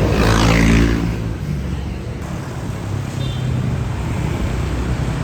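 A motor vehicle engine running with road noise. It is loudest in the first second, then steady.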